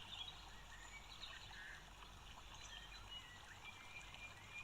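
Near silence: faint background hiss with a few faint, short high chirps scattered through.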